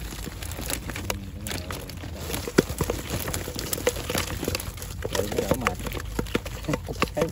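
A mesh fish trap is shaken out over a net-lined woven basket, its netting and the plastic bottle inside rustling and crinkling, while catfish drop and flop into the basket. There are many small clicks and knocks throughout, the sharpest about two and a half seconds in.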